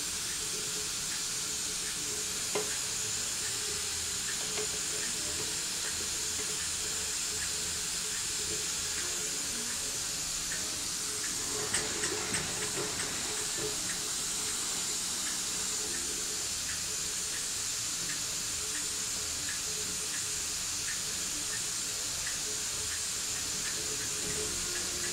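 Model beam engine running slowly on about 15 psi: a steady hiss with faint regular ticking, and a short cluster of louder clicks about halfway through.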